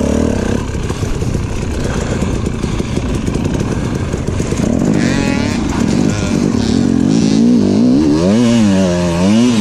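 KTM EXC 250 TPI two-stroke dirt bike engine under riding load, the throttle worked on and off. In the second half its pitch climbs and drops several times in quick succession.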